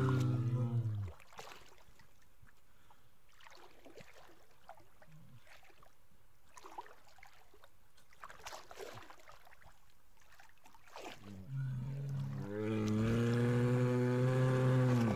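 Brown bear roaring: a deep, drawn-out roar fades out about a second in, followed by quiet water sloshing and light splashing as the bear swims. About twelve seconds in, another long, deep roar begins.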